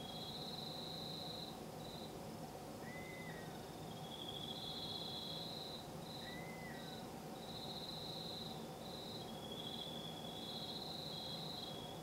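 Night insects trilling in repeated high, pulsing bouts, with two short chirping calls about three and six seconds in, over a steady low background hum.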